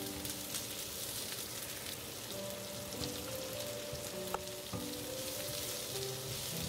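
Sliced carrots and red pepper sizzling in hot oil in a non-stick wok, stirred and tossed with a silicone spatula.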